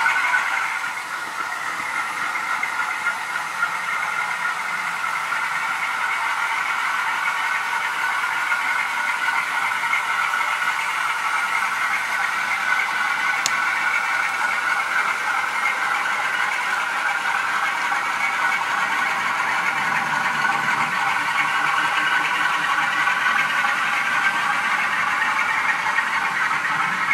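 Model trains running on a layout: a steady whirring and rattling of small electric locomotives and coaches on the track.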